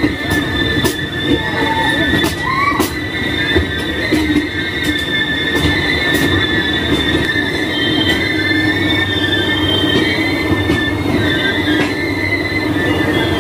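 A moving passenger train's steel wheels squealing against the rails in a steady high two-toned screech over the running rumble, with scattered sharp clicks from the track.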